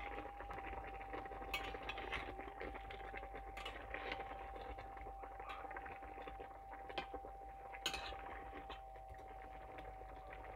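Slotted metal spatula stirring thick chicken korma in a stainless steel pan, with a soft wet squelch of the sauce and a few sharp clinks as the spatula knocks the pan.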